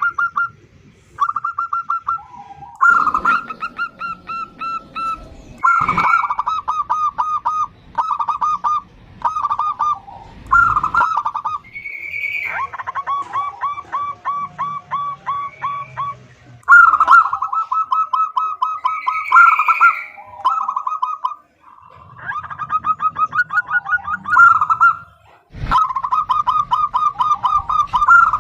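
Female zebra dove (perkutut) calling: bursts of rapid, short, repeated notes strung into long trains, with a few brief pauses between bursts.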